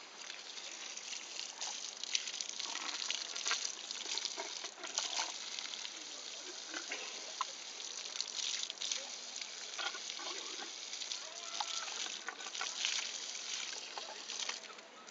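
Water from a garden hose running and splashing irregularly onto wet, muddy ground and against a baby elephant's trunk as she drinks and plays in the stream.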